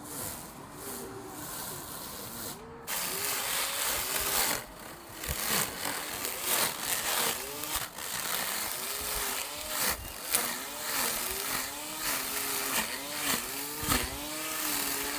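Small lawn mower switching on about three seconds in and running steadily as it cuts grass.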